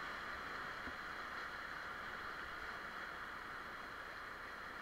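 Rushing whitewater of a river rapid: a steady hiss of moving water that eases slightly toward the end.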